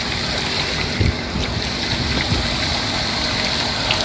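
Steady rush of churned water with wind buffeting the microphone, and a few low thumps about a second in and again past two seconds.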